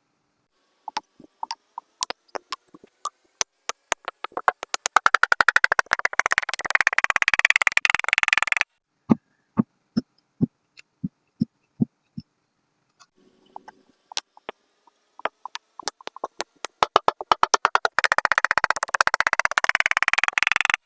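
Crunchy kinetic sand crackling under pressure: sharp separate clicks that quicken into a dense crackle, stop abruptly, then build the same way a second time.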